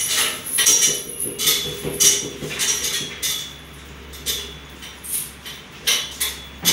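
Light metallic clinks and rustles come at an irregular pace as a wet German Shepherd is rubbed down with a towel on a grooming table, where the grooming arm and leash clip are jostled. The clinks come quickly for about three seconds, then thin out to a few, over a low steady hum.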